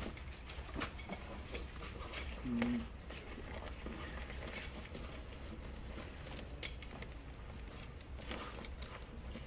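Roll-top dry bag being rolled shut by hand: soft rustling and crinkling of the bag's coated fabric, with scattered small clicks and taps as it is folded over.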